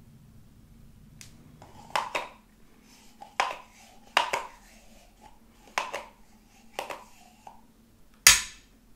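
Thick body lotion being scraped out of a cut-open plastic tube with a metal knife and spoon into a glass dish. About six sharp wet clicks and splats come at uneven intervals, the loudest near the end.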